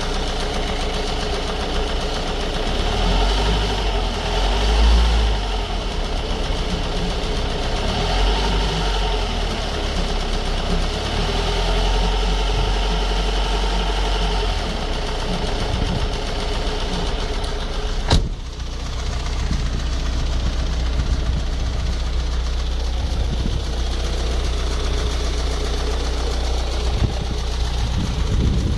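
Ford Focus 1.8 TDCi four-cylinder common-rail diesel engine running with a knocking, ticking rattle, which the owner traced to a faulty high-pressure fuel pump. A single sharp click sounds about two-thirds of the way through.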